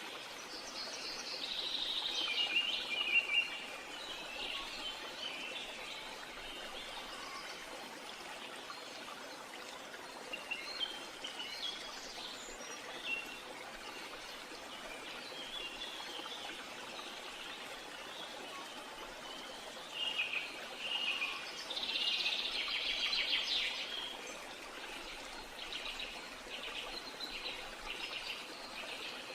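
Birds chirping and singing over a steady background hiss, with louder spells of song near the start and again about two-thirds of the way through.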